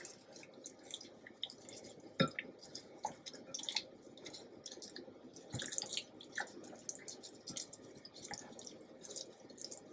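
Raw chicken thighs coated in olive oil and spice blend being handled with a gloved hand in a bowl: faint, irregular wet squishes and small clicks, one a little louder about two seconds in.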